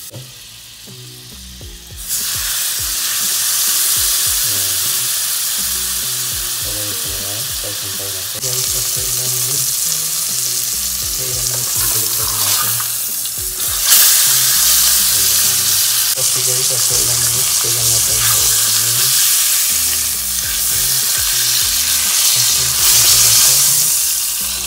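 Beef steak searing in butter in a hot nonstick pan: a loud, steady sizzle that starts suddenly about two seconds in and grows louder again around fourteen seconds, over soft background music.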